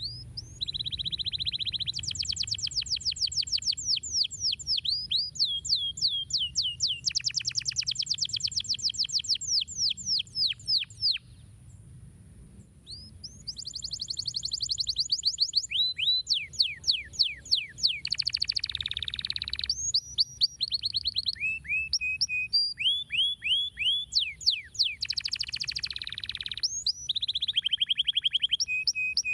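Domestic canary singing: long, high-pitched rolls of rapidly repeated notes, each phrase switching to a new note pattern, with a short break about eleven seconds in.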